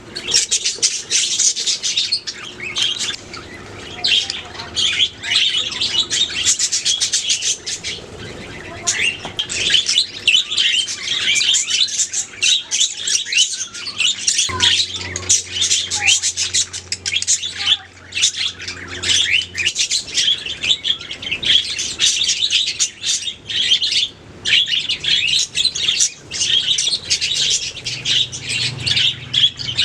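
Budgerigars chirping and warbling in a continuous, busy chatter of rapid high chirps.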